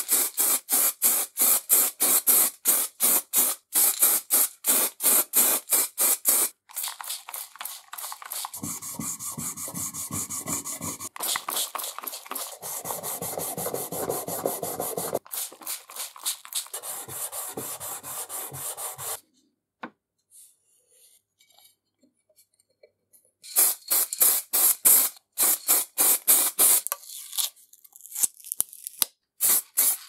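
Paint spray gun spraying two-component primer and paint onto small metal parts in short, rapid hissing bursts, about three a second. The middle stretch is a steadier, rougher hiss, broken by a few seconds of near silence before the quick bursts start again.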